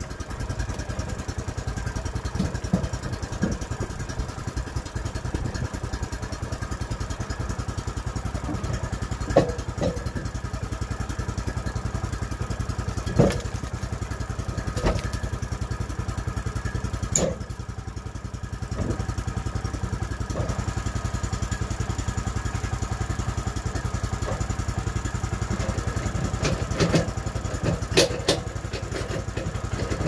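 Small gasoline engine of a Woodland Mills bandsaw sawmill idling steadily, with several sharp clunks and knocks as a log is rolled and set on the mill's steel bed.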